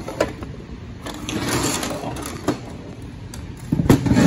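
Metal transmission parts handled on a steel workbench. There is a click just after the start and a scraping noise about a second in. Near the end comes a burst of clattering knocks, the loudest part, as the automatic transmission case is shifted.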